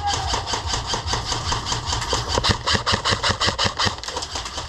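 Airsoft M4 rifle firing a long full-auto burst, an even rapid clatter of roughly eight shots a second.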